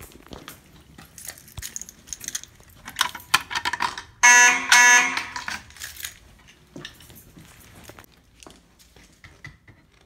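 Fire alarm horn sounding during a test of the system: two short, loud blasts a little over four seconds in, with scattered knocks around them.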